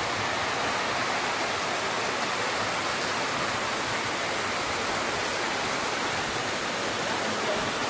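Heavy rain and floodwater rushing down a street, one steady, even rushing noise.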